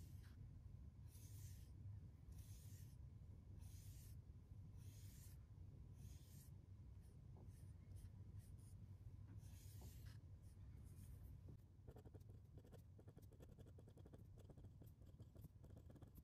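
Faint swishes of a cotton swab brushing ink across paper, one every second or so. After about twelve seconds this gives way to the fine, rapid scratching of a glass dip pen nib writing on paper.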